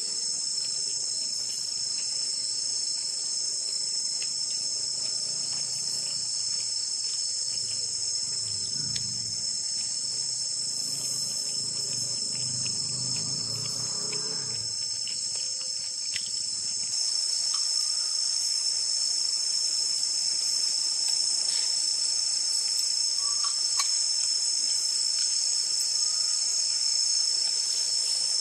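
Steady, high-pitched chorus of night insects shrilling without a break. A faint low murmur comes through around the middle, with a few small clicks.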